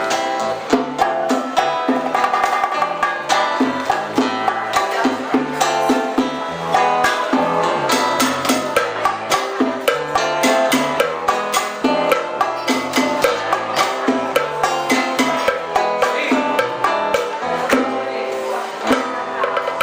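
Old-school Cuban music played live by a band: plucked strings over percussion, keeping a steady rhythmic beat.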